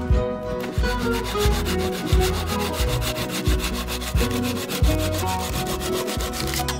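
Fast, rhythmic scraping or rubbing strokes that stop suddenly near the end, over background music with a steady beat.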